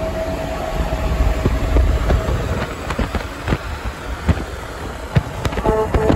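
A Kenworth T803 semi truck's pair of Grover 2001 air horns, a blast fading out about a second in, then the passing truck's engine and road rumble with scattered rattling clicks, and the horns sounding again near the end.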